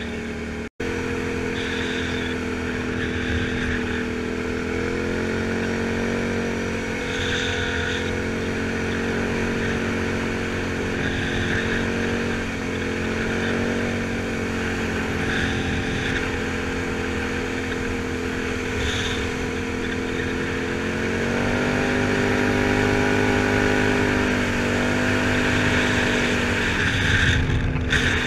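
Can-Am Outlander 1000 XT-P ATV's V-twin engine running at a steady cruise on a gravel road, its pitch rising as the quad speeds up about five seconds in and again past twenty seconds, then easing back. Tyre and wind noise run under it, and the sound cuts out for an instant just under a second in.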